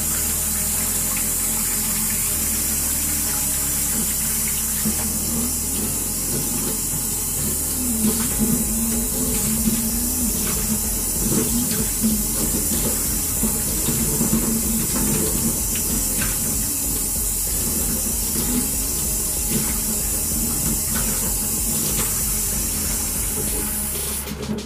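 Tap water running steadily from a faucet into a sink and splashing over a human-hair closure wig being rinsed by hand. The running water stops abruptly near the end.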